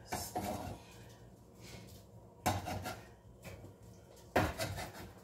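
Knife scraping and chopping diced pork on a cutting board in three short bouts about two seconds apart.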